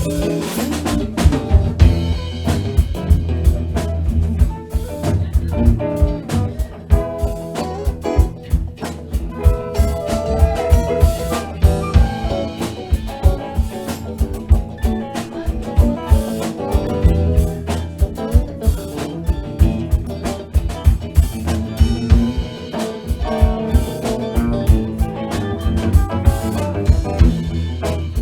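Live band playing an upbeat boogie number, the drum kit prominent with steady kick and snare hits over bass and other instruments.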